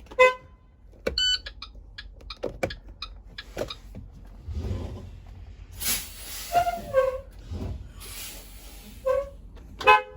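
School bus horn sounded in several brief toots, scattered among sharp clicks and a couple of bursts of hiss, over a steady low rumble.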